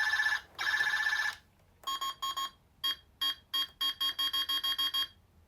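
Talking Buzz Lightyear action figure's electronic sound effects through its small speaker: two long trilling tones, then a quick run of short beeps.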